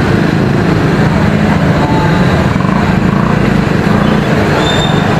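A motor vehicle engine running steadily close by, with a continuous low hum amid street traffic noise.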